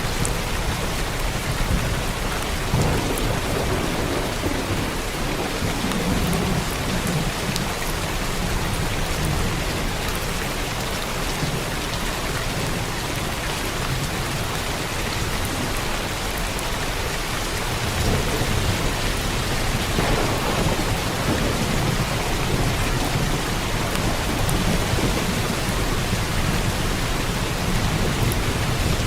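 Steady heavy rain with rolling thunder. Low rumbles swell a few seconds in and again about two-thirds of the way through.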